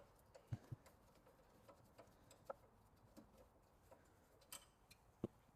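Near silence with a few faint, scattered clicks and knocks.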